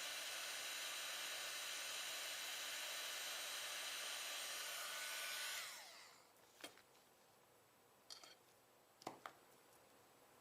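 Heat gun blowing with a steady hiss, then switched off about halfway through, its fan winding down with a falling whine. A few light taps follow.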